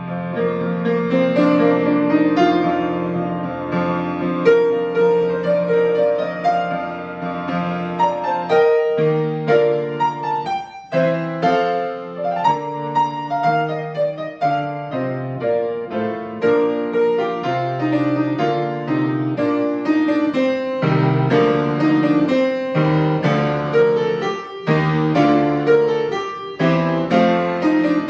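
Piano playing a hymn arrangement, melody over full chords with a steady flow of notes.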